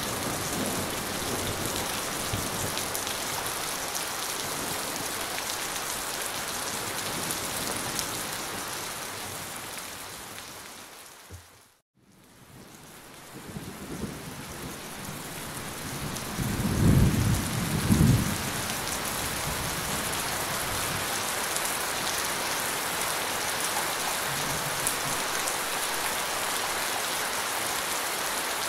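Steady heavy rain falling, a dense even hiss. About twelve seconds in it fades almost to silence and swells back, and a few seconds later a low thunder rumble builds to two loud peaks before the rain carries on.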